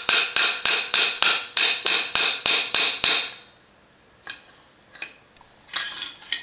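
Small hammer tapping the end of a metal rod to drive a tiny part of an Adams Arms gas piston kit flush into a hole in an AR-15 upper receiver. It makes a quick even run of about a dozen sharp metallic taps, roughly three a second, that stop about three seconds in, followed by a few lighter clicks.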